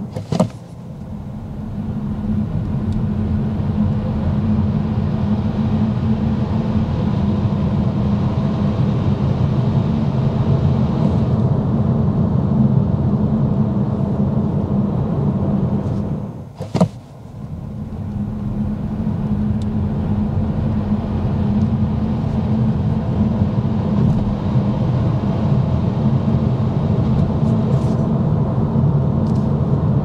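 Cabin noise of an Opel Astra e-Tourer electric car on winter tyres, heard from inside: a steady low road and tyre rumble. It drops out briefly near the start and again about 17 seconds in, each time building back up over a couple of seconds.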